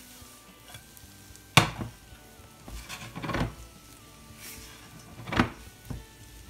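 Spatula scraping and knocking against a non-stick frying pan as fried rice is stirred and tossed, over a faint sizzle. The sharpest knock comes about one and a half seconds in, with another near the end.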